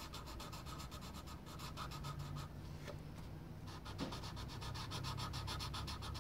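Fast, even back-and-forth colouring strokes scratching on a sheet of paper, easing off for a moment around the middle.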